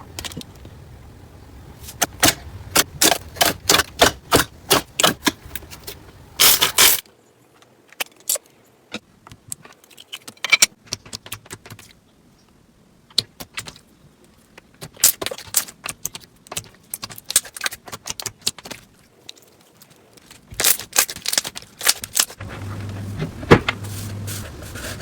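Slime being squeezed and poked by hand, giving quick runs of crisp clicks and pops. The sound stops for a few seconds in the middle and comes back in a second run.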